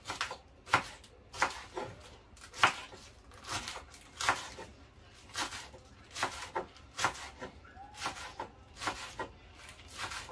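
Kitchen knife slicing through green onion stalks onto a wooden cutting board: a steady series of sharp cuts, roughly one or two a second.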